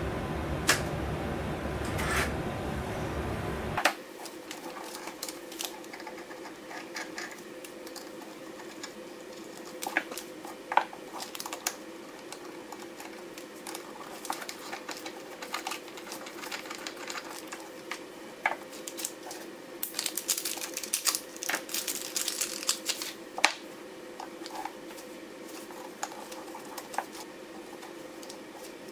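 Dell R710 server's cooling fans running steadily, with a couple of sharp clicks as the failed drive's hot-swap tray is released and pulled from its bay. About four seconds in this gives way to small metal clicks, taps and short scrapes of a screwdriver and loose screws as the drive is unscrewed from its metal caddy on a wooden desk.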